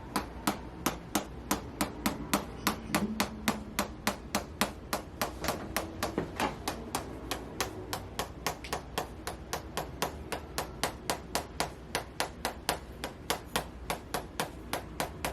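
Chiropractic adjusting instrument clicking in a steady, rapid series of sharp taps, about three to four a second, as it is worked over the neck.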